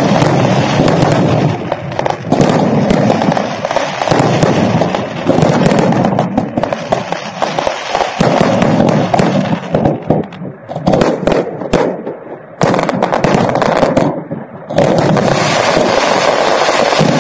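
Fireworks display going off at close range: a dense, rapid, continuous crackle of bangs and bursts, easing in short lulls about two-thirds of the way through before building up again.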